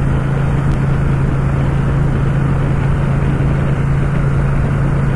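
Ducati Scrambler's L-twin engine running at steady cruising revs in sixth gear, a constant low hum over a steady rush of wind and road noise.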